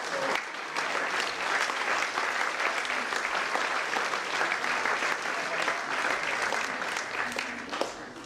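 Audience applauding in a hall, a dense patter of many hands clapping that dies down slightly near the end.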